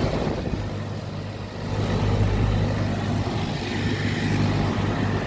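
Outdoor central air-conditioner condensing units running: a steady low compressor hum under the rush of the condenser fans, easing off slightly about a second in and coming back up a second later.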